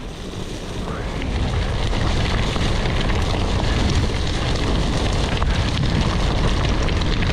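Wind rushing over a GoPro action camera's microphone on a mountain bike, with the tyres rolling over wet, muddy trail. The sound builds over the first couple of seconds as the bike gathers speed, then holds steady.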